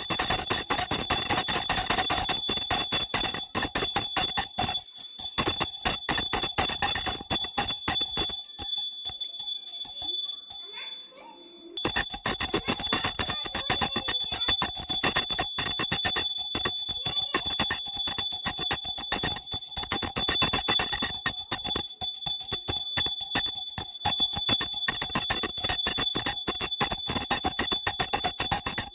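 Temple bell rung rapidly and continuously, fast repeated strikes over a steady ringing tone. The ringing fades almost away about ten seconds in, then comes back abruptly and carries on.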